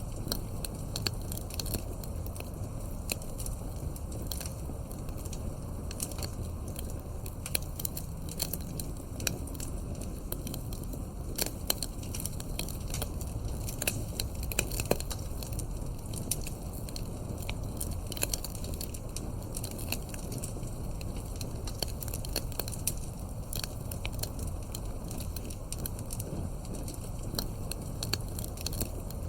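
Wood fire crackling, with frequent sharp pops and snaps over a steady low rumble of burning logs.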